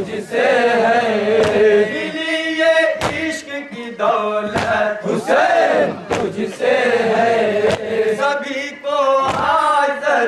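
Crowd of men chanting a Shia devotional refrain (nauha) in unison behind a lead voice on a microphone, with sharp slaps of matam, hands striking chests, about every one and a half seconds.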